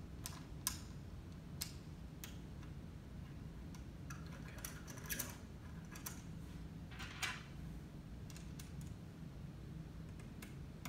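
Scattered small metallic clicks and scrapes as screws are turned by hand into profile mounts on an aluminium linear actuator carriage, with a slightly longer scrape about seven seconds in, over a low steady hum.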